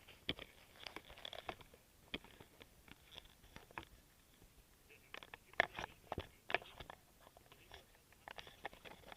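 Irregular clicks and crackles of close handling noise, loudest in a cluster about halfway through.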